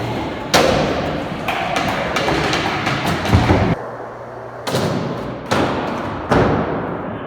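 A series of hard thumps, about seven at uneven intervals, each ringing out briefly, with a heavier low knock a little past three seconds.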